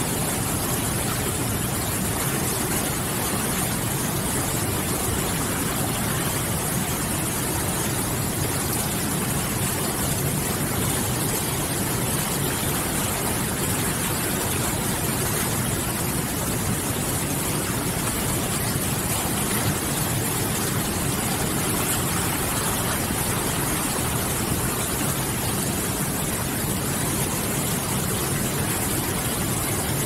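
Whitewater river rapids rushing over boulders: a steady, unbroken rush of water with a strong hiss.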